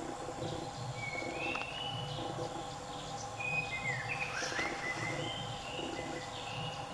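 Forest ambience: several short bird chirps and whistles come and go over a steady background hum.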